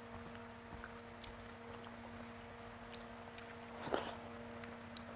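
Eating by hand: fingers mixing and squishing rice and curry on a plastic plate with small soft ticks, then a handful taken into the mouth about four seconds in, with a brief louder smack and chewing. A steady low hum runs underneath.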